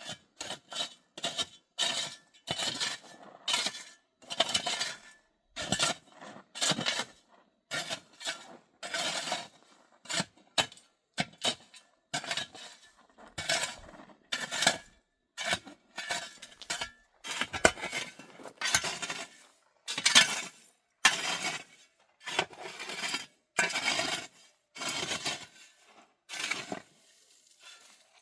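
Hard objects knocking and clinking together in a long run of separate clatters, about one or two a second at uneven spacing.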